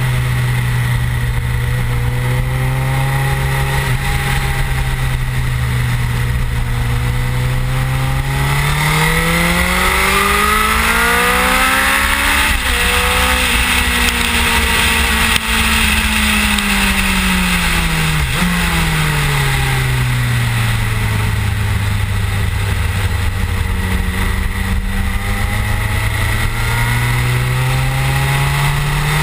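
Suzuki GSX-R1000 K7 inline-four engine at speed on a race track, over a steady rush of wind on the fairing. It holds a steady note, then revs up to an upshift about twelve seconds in. It falls away with a quick downshift blip around eighteen seconds, settles low, and revs up again near the end.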